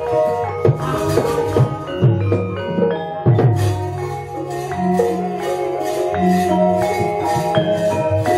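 Javanese gamelan playing: bronze metallophones ringing sustained notes over low sustained tones, with sharp percussive strikes scattered through it.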